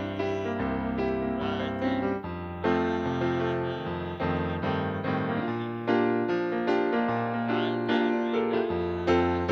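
Piano playing a slow gospel hymn in full, sustained chords, with new chords struck every second or so.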